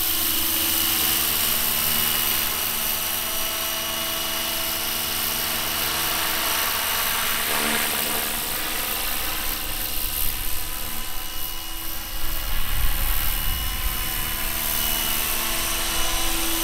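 Electric RC scale model of an Aérospatiale SA 315B Lama helicopter flying, with the steady whine of its electric drive and rotors. The sound changes as it passes directly overhead about halfway through.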